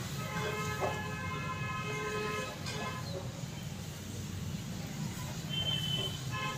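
A long horn-like honk lasting about two and a half seconds, then a shorter, higher horn tone near the end, over a steady low hum.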